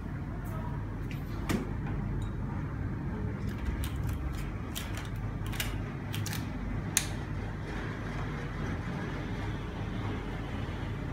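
Steady low background rumble with a few light clicks and knocks, about a second and a half in and then a cluster around the middle, as a small glass beaker is set on an electronic scale and the scale is switched on.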